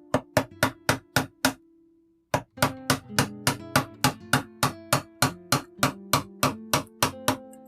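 Background music: acoustic guitar strummed in a quick, even rhythm, with a short break about two seconds in.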